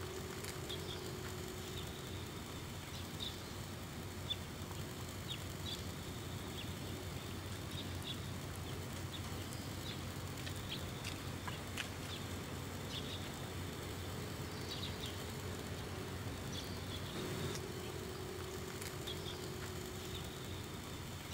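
Outdoor ambience: a steady low hum under short, high chirps that come irregularly, roughly every second or two.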